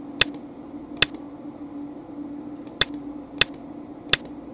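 Five sharp, single clicks at uneven intervals, one for each move played out on a digital go board as the game record is stepped through, over a faint steady hum.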